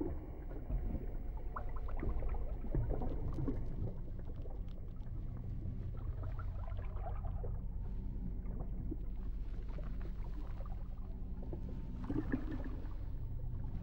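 Water sloshing and splashing in shallow water as an anaconda constricts a duck, over a low steady rumble. The disturbances are busiest in the first few seconds and pick up again near the end.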